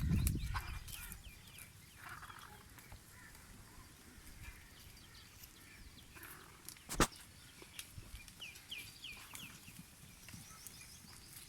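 Faint bird calls on a farm, including a quick run of about five short chirps near the end, with a single sharp click a couple of seconds before them.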